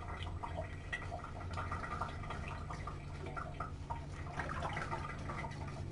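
Water dripping and sloshing as a kitten is washed by hand in a sink, over a steady low hum.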